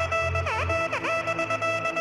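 Electronic background music: held synth notes with quick repeated dips in pitch, over a low bass note that drops out a little under a second in.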